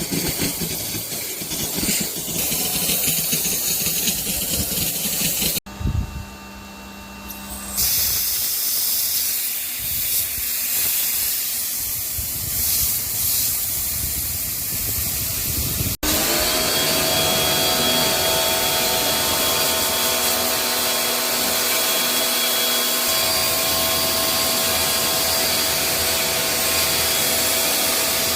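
Water sprayed hard from a pressure washer onto the parts of a disassembled air-conditioner fan coil unit, a dense steady hiss, in several separate takes. In the last stretch a steady whine runs under the spray.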